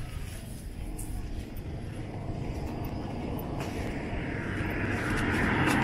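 A car approaching along the road, its road noise swelling steadily and loudest near the end as it draws close.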